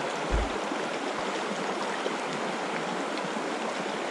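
Shallow creek water running over a gravel riffle: a steady, even rush. A brief low thump comes about half a second in.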